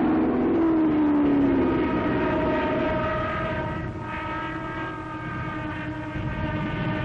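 Propeller aircraft engines droning steadily, with a pitch that falls over the first couple of seconds, on an old, noisy newsreel soundtrack.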